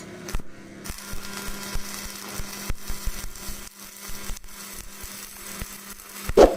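Hand-tool work on a water pipe valve: irregular scraping with many clicks and knocks over a steady low hum, and one brief loud sound near the end.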